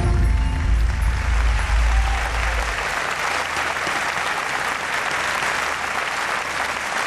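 Audience applauding after a song ends, the clapping building over the first second or so and then holding steady. A deep low rumble underneath fades out about three seconds in.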